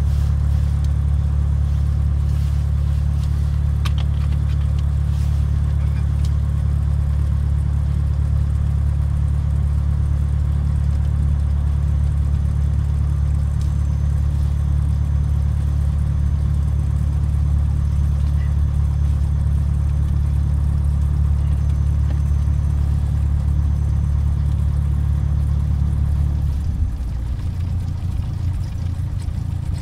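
Light aircraft's piston engine and propeller heard from inside the cabin, running with a steady low drone; near the end the engine note drops lower and a little quieter as power comes back.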